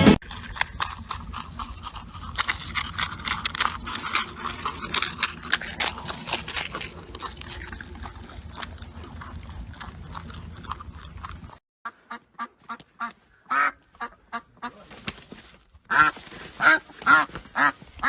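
Ducks quacking in short, separate calls. The calls start after a sudden cut about eleven and a half seconds in, and are loudest near the end. Before the cut there is a steady noisy background with many small clicks and knocks.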